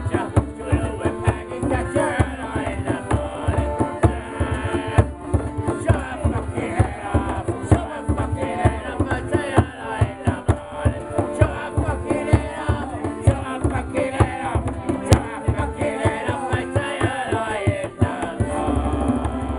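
Piano accordion played with a quick, steady beat, with two men's voices singing along to it.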